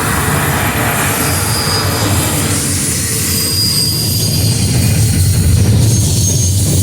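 A train rolling past with a steady, loud low rumble from its wheels on the rails, broken by a few short, high-pitched wheel squeals.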